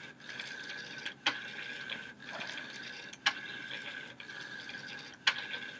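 GoPiGo robot's small geared drive motors whining steadily as it drives its forward-and-back routine, with a sharp click about every two seconds.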